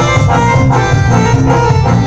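Live band music played loud through large PA speakers: keyboard with an organ-like sound over bass and a drum kit, keeping a steady dance beat.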